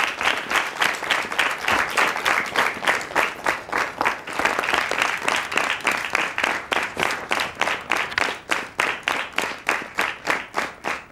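Audience applause from many people clapping. It starts as a dense clatter of hands and settles in the second half into a more even clapping rhythm of about three to four claps a second, thinning toward the end.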